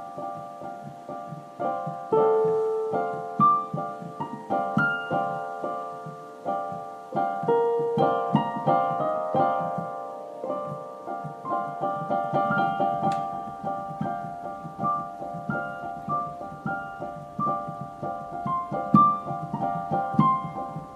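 Background piano music, a continuous flow of gently struck notes.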